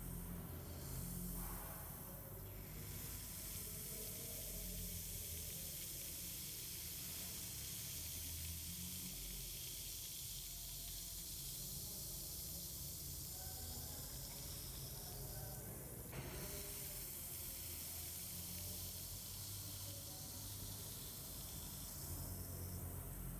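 Steady fizzing of fine gas bubbles rising through an electrolysis rust-removal bath, with a low hum underneath and one brief click about two-thirds of the way through.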